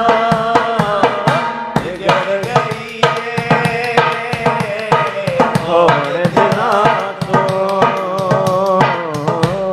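Instrumental passage of a Punjabi song: a wavering melody line over a steady hand-drum beat.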